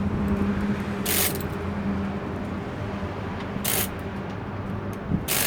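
Mechanical workshop handling noise with scattered clicks over a steady low hum, broken by three short bursts of hiss, about a second in, past the middle and near the end.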